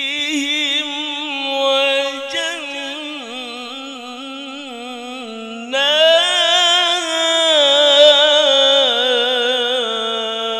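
A man reciting the Qur'an in the melodic tilawah style through a handheld microphone. He holds long, drawn-out melismatic phrases with rapid wavering ornaments, and a louder, higher phrase swells in about six seconds in.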